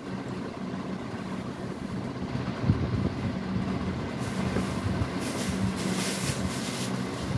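Cloth rustling as a length of cotton fabric is handled and gathered up, loudest in the second half, over a steady low hum. There is one knock nearly three seconds in.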